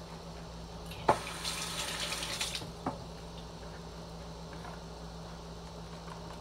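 Kitchen tap run briefly: a knock about a second in, about a second and a half of running water, then a click as it goes off.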